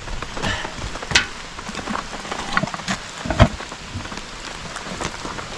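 Rain falling after a thunderstorm, with scattered drops tapping, and one dull thump about three and a half seconds in.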